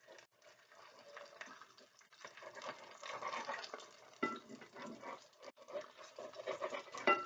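Apple pancakes frying in hot oil in a frying pan over medium heat: an irregular crackling sizzle that grows louder about two seconds in, with a couple of sharper crackles.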